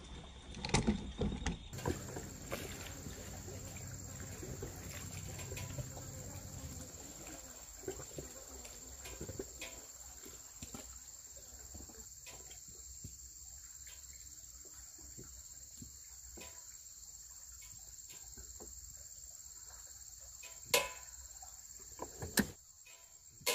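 Crickets or similar night insects chirring in a steady, high-pitched drone, with scattered small clicks and taps and two sharper clicks near the end.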